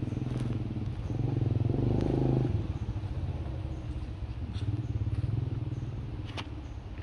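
A motor engine, likely a motorcycle, running steadily with a low pulsing rumble that grows louder about a second in and eases off after two and a half seconds. A couple of short sharp clicks come near the end.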